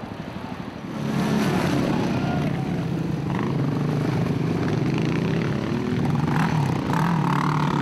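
Quad bike engines running on a race track, a steady engine drone that comes up about a second in, its pitch rising and falling a little with the throttle.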